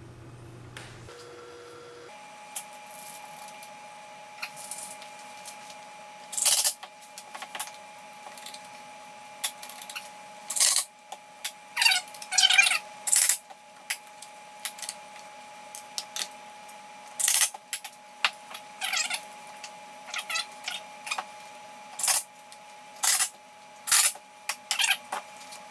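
Workshop handling sounds as pine boards are set in place and one-handed trigger bar clamps are slid on and squeezed tight: a scattered series of clicks, knocks and short squeaks.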